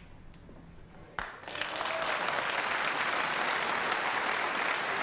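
Snooker audience applauding, breaking out suddenly about a second in after a short hush and carrying on steadily.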